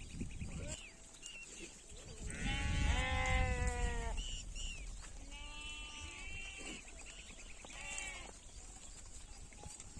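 Sheep bleating: one long, loud bleat starting about two seconds in, a longer wavering one from about five and a half seconds, a short one near eight seconds, and fainter, higher calls in between.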